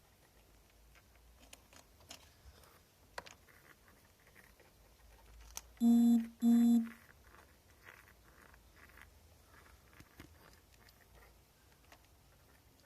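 Two short, steady electronic beeps, one straight after the other, about halfway through, over faint scattered ticks and light rustling.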